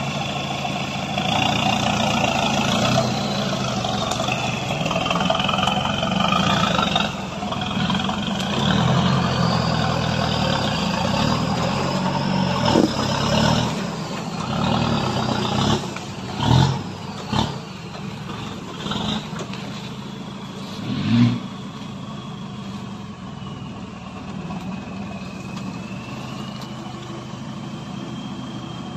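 Nissan Big M pickup's engine running at low speed and revving now and then as it crawls over a rough trail, with a high whine rising and falling above it. A few sharp knocks and clunks from the truck come about sixteen to seventeen seconds in and again near twenty-one seconds.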